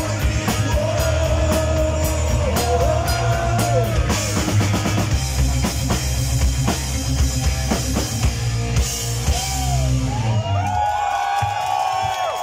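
Live heavy metal band playing: distorted electric guitars, bass guitar and drum kit, with singing. The music stops about ten seconds in, and the audience starts cheering and whooping.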